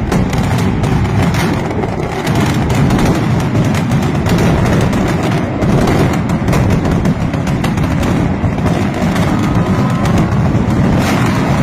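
Mascletà firecrackers (masclets) going off in a dense, unbroken barrage of loud bangs, too many and too close together to count, at a steady level throughout.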